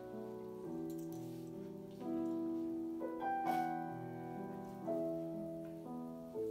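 Slow piano music in a gentle classical style: sustained chords changing about once a second. There is a faint knock about three and a half seconds in.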